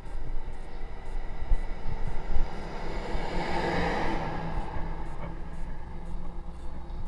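A motor vehicle passing close by, swelling to its loudest about four seconds in and then fading, over a steady low rumble of wind buffeting a bicycle-mounted camera's microphone.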